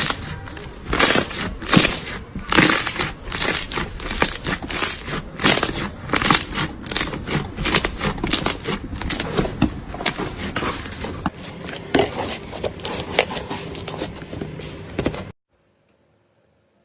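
Slime being squeezed and worked by hand, giving a dense run of crackling, crunching clicks that stops abruptly near the end.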